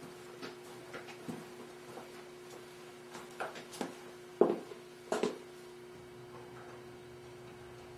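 Small office room tone with a steady hum and faint scattered ticks, broken by a few knocks and thumps in the middle, the loudest about four and a half seconds in.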